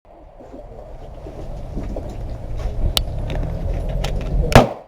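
A steady low rumble with a few faint clicks, then one loud gunshot about four and a half seconds in.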